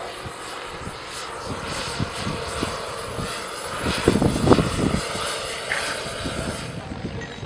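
Radio-controlled scale model helicopter in flight, its engine and rotor running steadily as it passes, loudest about four to five seconds in.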